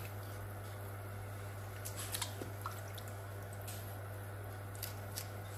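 Kitchen scissors snipping while wet fish is handled in a stainless steel bowl, gutting the fish: scattered short clicks and squishes, a cluster about two seconds in, over a steady low hum.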